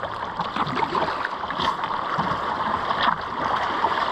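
Rushing water of a shallow river rapid, growing steadily louder as a kayak runs into it.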